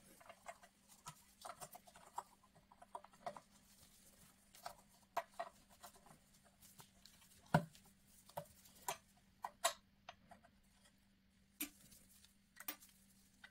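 Faint, irregular clicks and taps of hands fitting a rubber timing belt over the toothed pulleys of a small DC motor and a steel flywheel. The sharpest clicks come about halfway through and again a couple of seconds later.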